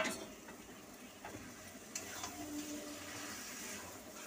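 One sharp clack at the very start, then a metal spatula turning raw chicken pieces in a steel kadai of masala, with faint scattered scrapes and clicks.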